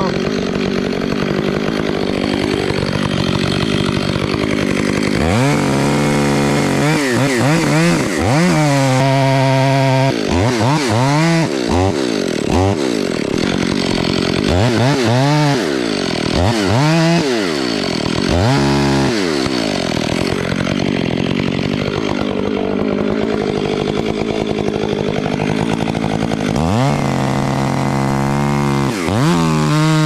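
Stihl MS 500i chainsaw running, its throttle opened and let off again and again, so the engine pitch climbs and falls about a dozen times, with steadier stretches of running between.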